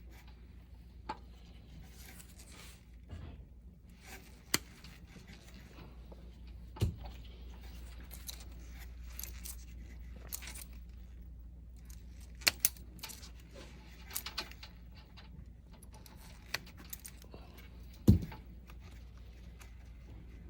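Scattered small clicks, taps and rustles of electrical wires and wire nuts being handled and twisted together, with two heavier knocks, one about a third of the way in and one near the end, over a low steady hum.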